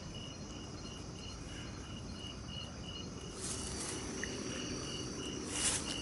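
A cricket chirping in an even pulse, about three chirps a second, over a faint steady night-insect hiss. A brief rustling noise comes in near the end.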